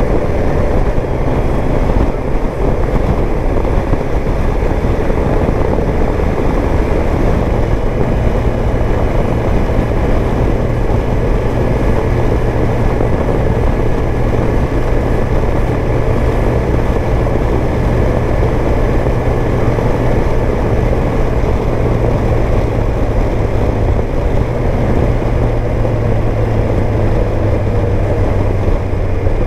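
Kawasaki Versys 1000 S inline-four engine running steadily under way, mixed with a constant rush of wind and road noise.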